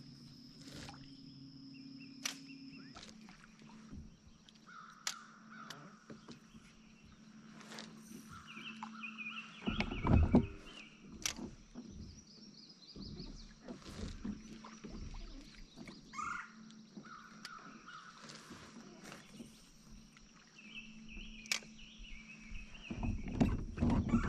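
Wild birds calling and singing around the lake shore, short repeated calls coming and going, over a steady faint high-pitched drone. Scattered clicks and knocks from the kayak, with one louder low thump about ten seconds in and more low knocking near the end.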